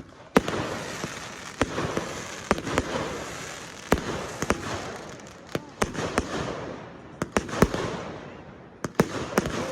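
Fireworks display: a dozen or so sharp bangs of bursting shells at uneven intervals, some in quick pairs, over a steady crackling hiss between them.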